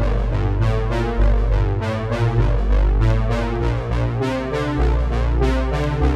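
Background music with a steady beat and deep bass notes.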